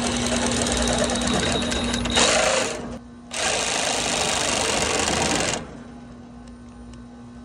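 Sawzall reciprocating saw with a metal-cutting blade sawing through the steel tube-sheet frame beside a copper refrigerant tube of an AC condenser coil. It runs in two short cuts, the first about three seconds long and the second starting about halfway through and lasting about two seconds.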